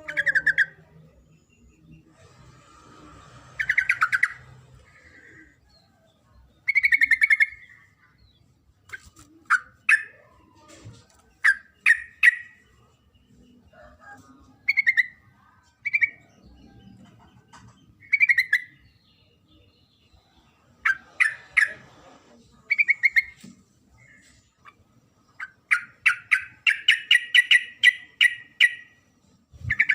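Yellow-vented bulbul (trucuk) giving short bubbling, chattering calls in bursts every second or two, the female's call to a male, with a longer chattering run near the end.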